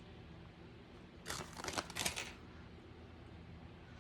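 Grated Parmesan cheese being shaken out of its container: about a second of dry rustling that starts a little over a second in.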